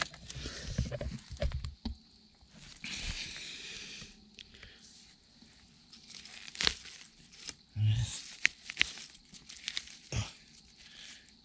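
Dry pine-needle litter and undergrowth rustling and crunching as mushrooms are cut from the ground with a folding knife and handled, with scattered sharp snaps and clicks and a dull thump a little after halfway.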